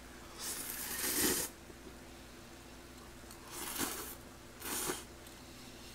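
A man slurping ramen noodles with a hiss of air: one long slurp about a second in, then two shorter ones a little before and after the four-second mark.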